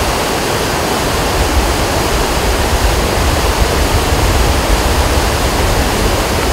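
Steady rushing roar of a muddy river in flood churning through and around a collapsed road bridge, with a deep rumble underneath.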